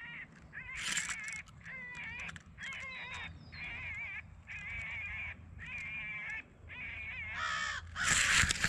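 Electronic predator call playing a rabbit distress sound: a string of short, wavering, wailing cries repeating one after another. Near the end there is a sudden loud, harsh burst.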